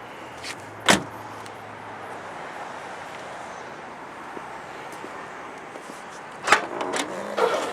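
A Holden VE Commodore Sportswagen door shuts with one loud thump about a second in. Near the end come a few sharp latch clicks and knocks.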